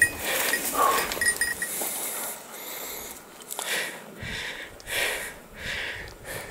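Hunting dog breathing hard at close range, short noisy breaths in a steady rhythm.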